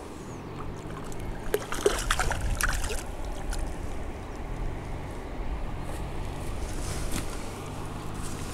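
A hooked crucian carp splashing and thrashing in shallow water at the bank as it is drawn in and grabbed by hand. The splashes come in a burst about one and a half to three seconds in, with a few single splashes later.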